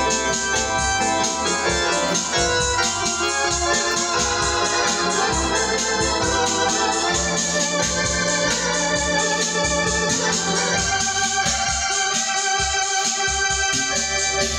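Hammond home console organ being played: held chords and a melody over a pulsing bass line.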